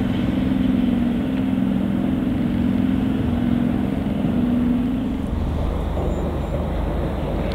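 Diesel shunting locomotive's engine running with a steady droning note as the locomotive moves slowly. About five seconds in, the sound cuts to a lower, steady rumble.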